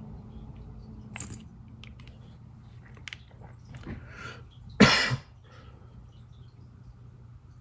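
A few small clicks and handling sounds, then one short, loud cough about five seconds in.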